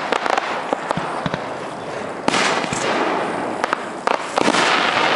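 Aerial firework shells bursting one after another: a string of sharp bangs over continuous crackling, with the loudest bursts about two seconds and four and a half seconds in.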